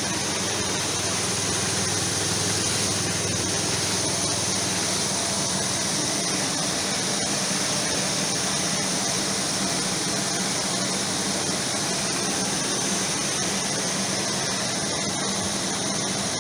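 Electric sweep auger running inside a steel grain silo, a steady hum under an even hiss as the grain is drawn down into it.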